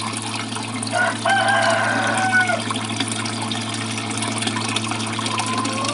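A rooster crows once, a long call starting about a second in, with a second, fainter call near the end. Underneath is the steady hum and water rush of a 12-volt DC hydroponic pump running nonstop.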